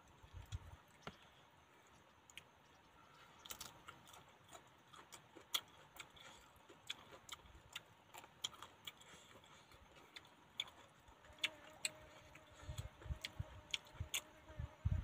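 Close eating sounds: irregular crisp clicks and crunches as raw leafy greens are handled and chewed by hand, growing busier in the second half, with a few soft low knocks near the end.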